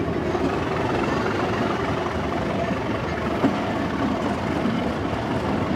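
Train on the move, heard from on board: the steady drone of Class 37 locomotive 37109's English Electric V12 diesel mixed with wheel-on-rail noise.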